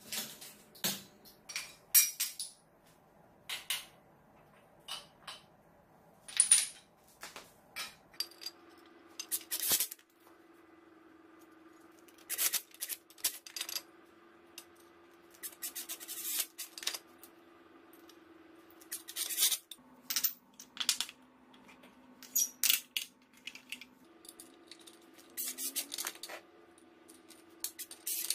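Small metal parts and tools clinking and clattering, with several short bursts of a Makita 14.4 V cordless drill driving bolts into a steel engine mounting bracket.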